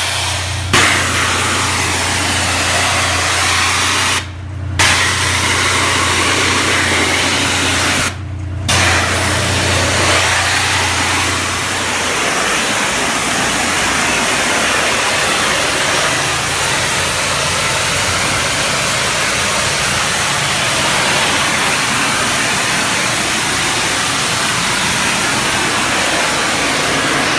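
Pressure washer jet spraying water with a steady hiss over the hum of its engine. The spray cuts off briefly twice while the engine keeps running.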